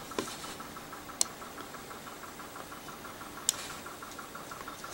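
Tin candle-powered pop-pop steam boat running, its boiler pulsing in a fast, even putt-putt of about seven pops a second as it steams along. Two sharp clicks cut in, one about a second in and another a little over two seconds later.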